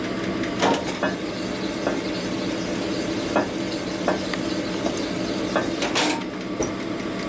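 Hone running in an engine case's main bearing bore under light pressure: a steady motor hum with the stones scraping and hissing against the metal, and a few small clicks.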